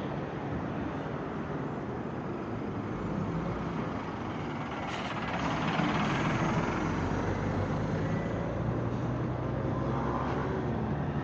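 City street traffic: cars and heavier vehicles running past, with a louder vehicle going by about halfway through.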